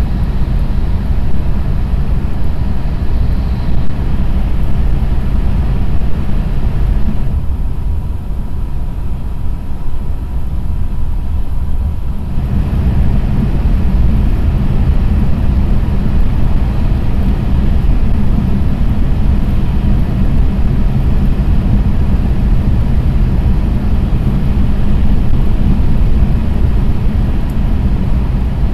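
Cabin running noise of a JR East E6 series Shinkansen cruising at about 309 km/h: a steady deep rumble with a hiss above it. The hiss eases off for about five seconds from about seven seconds in, while the rumble carries on.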